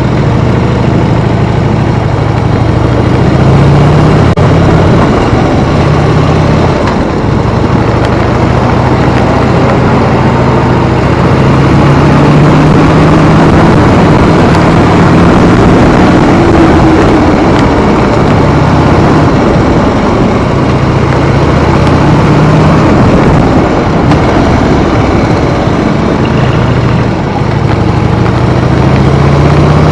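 Harley-Davidson V-twin motorcycle engine running on the move, its note climbing and dropping back several times as the bike speeds up and changes speed, over a steady rush of wind noise.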